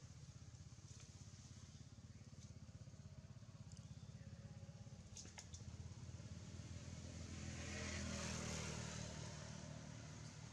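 Faint motor vehicle engine running steadily, swelling louder about eight seconds in and then easing off. A couple of faint clicks come around five seconds in.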